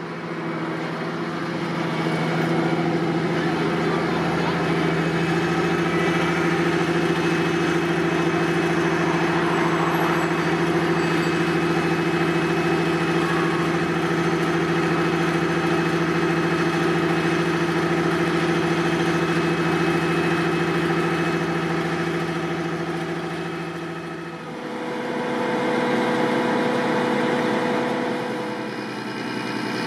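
Vredo VT3306 self-propelled slurry applicator's diesel engine running at a steady speed, its note holding constant and growing louder over the first couple of seconds. About 24 seconds in, the sound dips and gives way to a different steady engine note.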